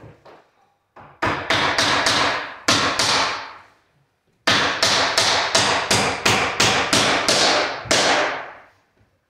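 Hammer striking in two runs of quick, even blows, about three a second, with a pause of about a second between, driving small nails into laminate flooring on a wooden stair step.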